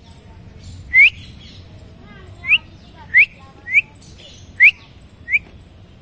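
Rose-ringed parakeet giving six short, sharp rising chirps at uneven intervals.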